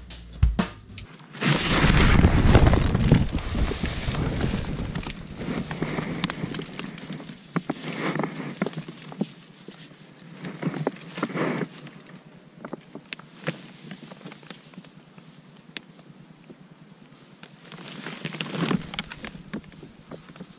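Nylon tent fabric rustling and crinkling as the tent is handled, with scattered clicks and knocks. The loudest stretch runs from about a second and a half to four seconds in, and another burst comes near the end.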